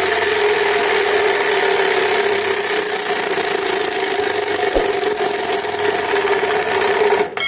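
Homemade fake motorbike silencer made from a plastic Mountain Dew bottle on a bicycle's rear wheel, the spinning spokes catching the plastic to make a steady, engine-like buzz. It cuts off abruptly just before the end.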